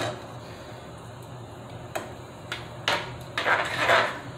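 Spatula knocking and scraping in a skillet of sloppy joe meat sauce as it is stirred: a few sharp clicks, then a stretch of scraping near the end, over a faint steady hiss from the simmering pan.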